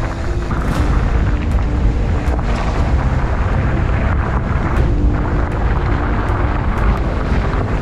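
Wind rushing over the camera's microphone during a fast mountain-bike descent on a gravel road, as a steady low rumble, with the tyres crunching and clicking over loose stones.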